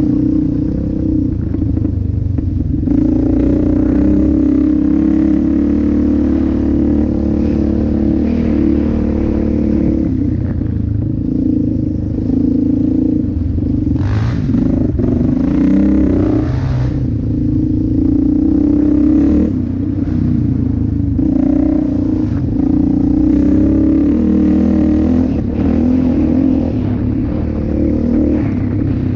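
Yamaha Raptor 700R ATV's single-cylinder four-stroke engine running steadily under throttle on a trail ride. Its pitch dips and rises several times as the throttle is eased off and opened again.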